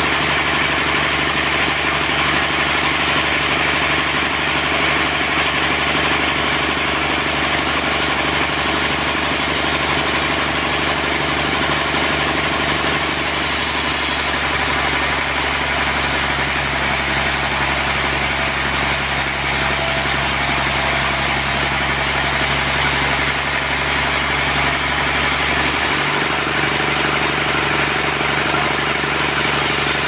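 Large band sawmill running, a loud steady machine drone from its drive. A high hiss comes in about halfway through and carries on.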